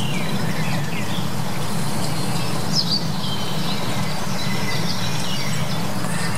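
Small birds chirping now and then over a steady low rumble of outdoor background noise.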